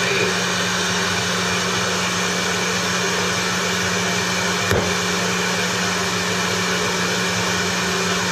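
Steady radio static hiss with a low mains hum from a homemade crystal radio set tuned to the CB band, heard through a guitar amp, while the tuning capacitor is turned. There is a single short click a little past the middle.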